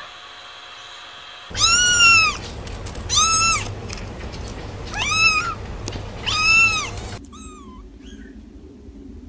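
Kitten meowing: four loud, high-pitched mews about a second and a half apart, each rising then falling in pitch. Near the end, two faint, short squeaky mews.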